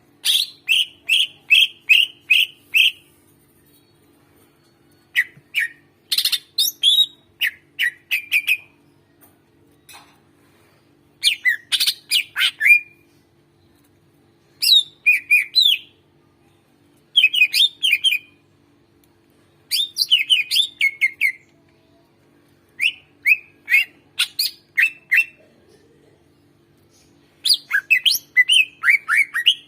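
Greater green leafbird (cucak ijo) singing: about eight bursts of rapid, sharp, chattering notes, each a second or two long, with short pauses between them.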